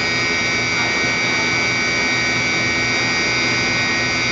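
Kitamura MyCenter 2X-if CNC machining centre's spindle running at a steady speed of about 10,000 RPM, a high whine made of several steady tones. It runs smoothly, with no vibration or harmonics.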